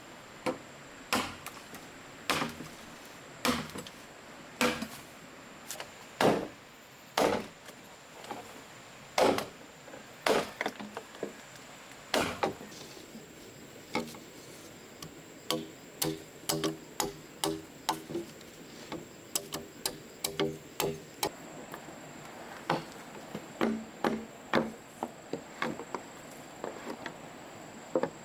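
Chopping strikes on bamboo: sharp single blows about a second apart, then a run of quicker, lighter knocks that ring, then single blows again.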